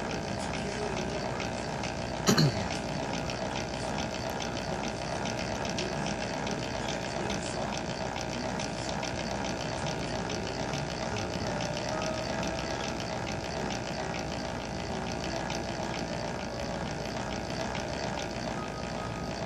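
Milling machine running steadily while its cutter mills a helical groove in a metal workpiece, with a single sharp knock about two seconds in.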